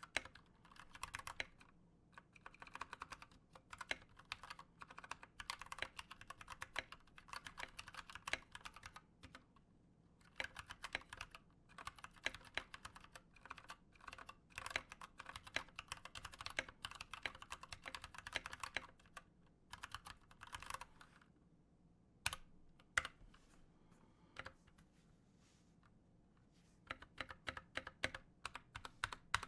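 Typing on a stock Anne Pro 2 mechanical keyboard with unlubed Gateron Brown switches: pingy and rattly, the stabilizers vibrating. Rapid runs of keystrokes with short pauses, then a few separate presses about two-thirds through and a run of evenly spaced presses near the end.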